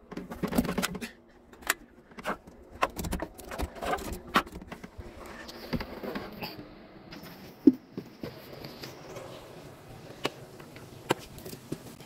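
Scattered clicks, knocks and handling noise as switches at a boat's helm panel are worked, with one louder short knock just past the middle; no engine running.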